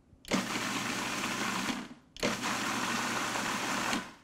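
Food processor pulsed twice, the motor running about a second and a half each time with a brief stop between, chopping whole canned San Marzano tomatoes into a chunky sauce rather than a paste.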